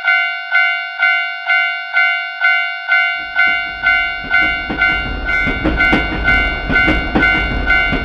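Japanese level-crossing warning bell (fumikiri 'kan-kan') ringing steadily, about two strikes a second. About three seconds in, an electric train's low rumble and wheel clatter come in under the bell as the train runs through the crossing.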